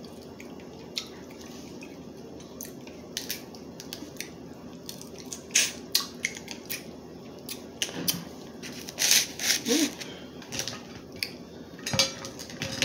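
Crab leg shells being cracked and broken apart by hand: a run of irregular sharp cracks and clicks, busiest about nine to ten seconds in.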